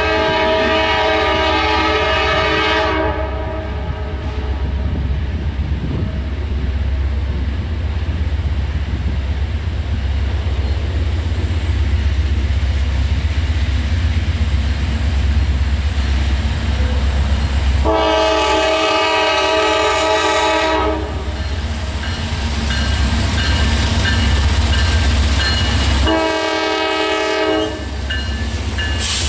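Locomotive air horn sounding a chord of several tones: a long blast, another long blast about eighteen seconds in, then a short one, with a fourth starting at the very end. Between the blasts a passing train's steady low rumble and wheel clatter go on.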